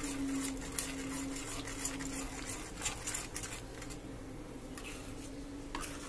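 Metal spoon stirring thick gravy in a stainless steel pan, with repeated light clinks and scrapes against the pan that thin out in the second half, over a faint steady hum.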